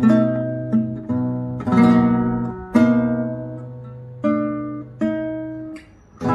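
Matsuoka nylon-string classical guitar played fingerstyle: slow chords and single notes struck one after another and left to ring and fade, with a short lull near the end.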